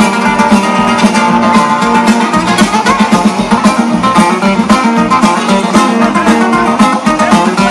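Live country-rock band playing an instrumental break between verses: guitar lines over a steady, fast drum beat.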